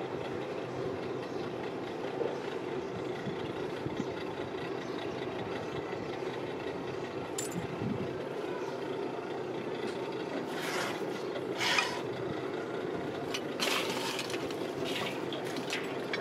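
Steady machine drone, with several short scrapes and metallic clinks from about ten seconds in as the sand-casting mould flask and tools are handled.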